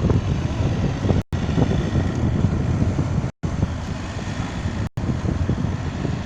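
Road noise from a moving car with wind buffeting the microphone, broken by brief silent gaps three times.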